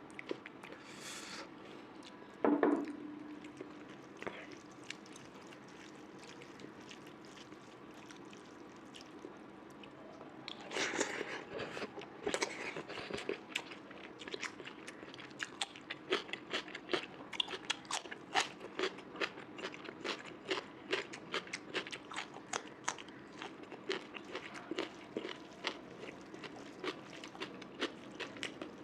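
Close-miked eating of mutton curry, rice and pork fry: chewing and crunching, with a dense run of quick wet clicks through the second half. One loud knock comes a couple of seconds in.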